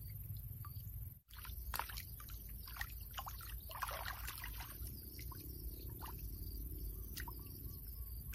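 Pond water splashing and trickling, with many small scattered clicks and taps; the sound cuts out for a split second about a second in.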